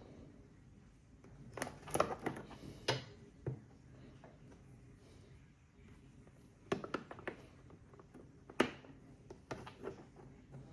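Hard clicks and knocks from battery pack parts being handled and set down on a bench, in two short clusters a few seconds apart.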